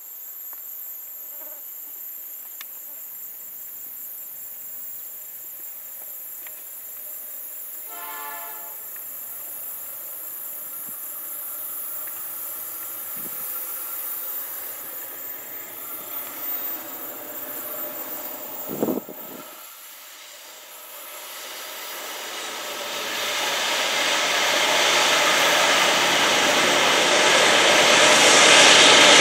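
Insects chirring steadily while a distant diesel locomotive horn sounds briefly about eight seconds in. From about twenty seconds in, the rumble of an approaching GE diesel-electric locomotive leading an empty ore train grows steadily louder as it comes through the tunnel.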